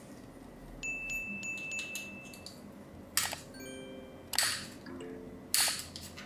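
Background music with chime-like notes: a held high tone early on, then strikes about every second with low notes sounding under them.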